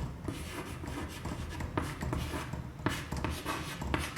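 Hand-writing sounds: a pen scratching out short, irregular strokes on a writing surface, with a few sharper taps, as a chemical structure diagram is drawn.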